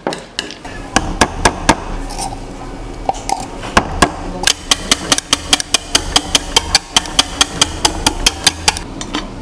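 Wire whisk beating cream in a glass baking dish, its wires striking the glass in sharp clicks. The clicks come irregularly at first, then settle into a steady rhythm of about four a second from the middle until just before the end.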